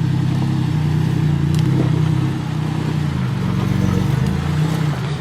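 Off-road rig's engine running steadily at low revs, a low even hum.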